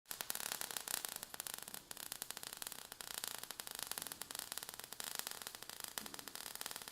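Faint crackling static: a dense run of rapid, irregular clicks with no steady tone.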